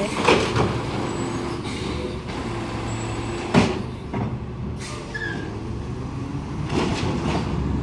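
Yard-waste garbage truck's engine running steadily, with a few sharp knocks, the loudest about three and a half seconds in.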